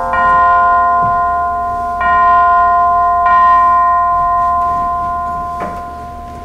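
Chime bells struck one after another, three notes that each ring on and slowly fade, with a soft knock near the end.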